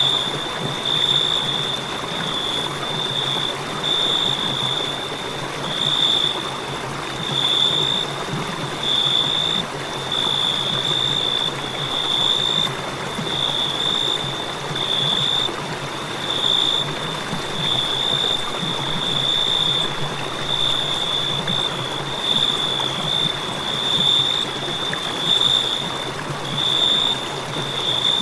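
Cricket chorus: a steady high-pitched trill broken by short gaps about once a second, over an even rushing background noise.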